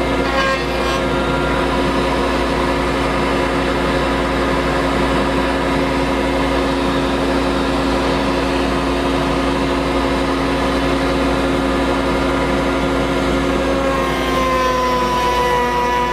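Table-mounted router running at full speed, a steady whine, as small hardwood blanks are fed past the bit to rout pen channels. Near the end its pitch drops slightly as the bit takes the cut.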